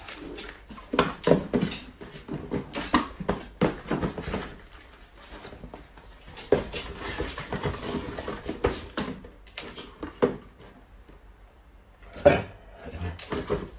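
Small cardboard boxes being handled and knocked together, making a run of irregular taps, knocks and rustles, with a sharper knock near the end.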